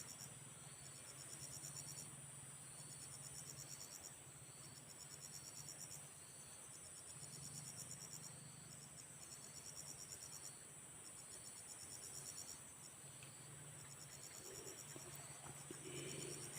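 Faint insect chorus: high pulsed trills that repeat in bursts a second or two long with short breaks, over a steady high-pitched hiss.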